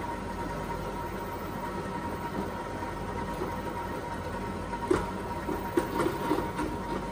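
Countertop stand mixer running steadily, creaming cream cheese frosting in its bowl, with a steady motor whine under it. A few short knocks come near the end.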